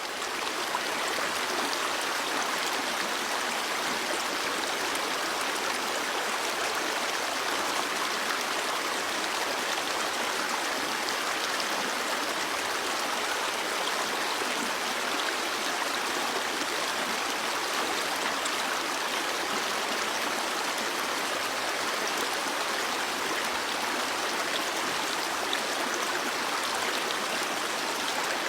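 Stream water flowing: a steady, even rush with no breaks.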